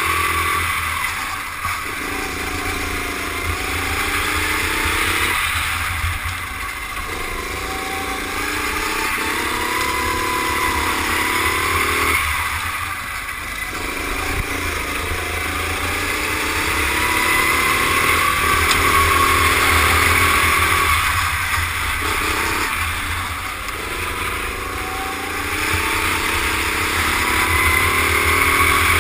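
Rental go-kart engine at racing speed, heard onboard: its note climbs in pitch along the straights and falls away several times as the throttle is lifted for corners.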